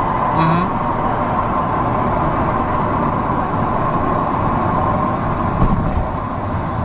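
A car driving, heard from inside: steady road and engine noise, with a single bump about five and a half seconds in.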